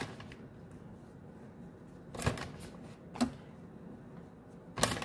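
A plastic bag of grated cheese crinkling in four short rustles as the cheese is shaken out and sprinkled over a tray of macaroni.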